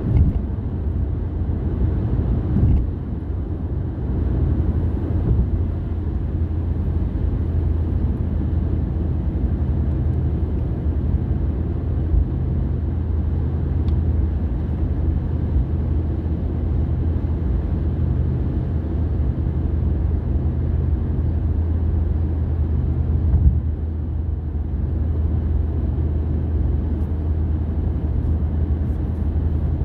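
Car driving along a road: a steady low engine and tyre rumble, with a few brief bumps.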